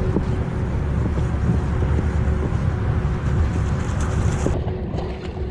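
Wind buffeting the microphone outdoors, a steady low rumble, with a few faint clicks and a faint steady hum underneath.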